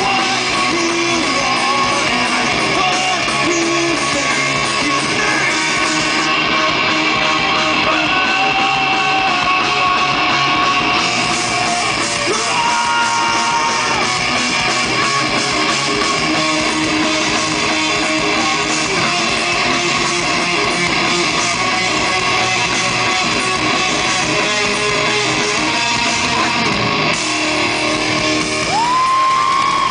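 Rock band playing live on stage: electric guitars and a drum kit, loud and unbroken, with held notes and a rising pitch bend near the end.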